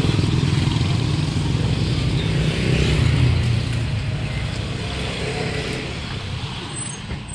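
Road traffic passing close by, cars and motorcycles running with a steady low engine rumble that grows quieter over the last few seconds.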